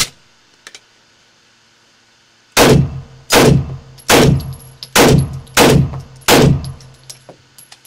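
A suppressed B&T GHM9 9mm carbine firing six single shots about two-thirds of a second apart, starting about two and a half seconds in, each with a short echoing tail.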